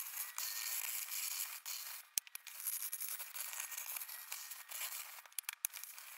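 Steady scraping and rubbing on wood, with short breaks about two seconds in and again near the end.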